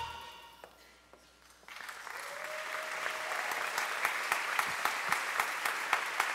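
Audience applauding in a concert hall, many hands clapping steadily; the clapping breaks in suddenly about two seconds in, just after the intro music fades away.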